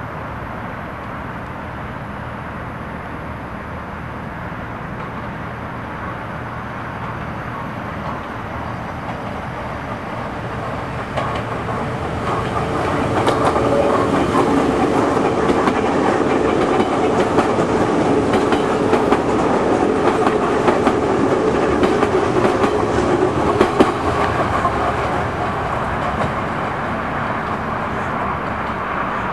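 Kyiv metro train of the E series (Ezh/Em type cars) passing on surface track. It grows louder and is loudest from about 13 to 24 seconds in, with wheels clacking over the rail joints and a steady tone under the running noise, then eases off.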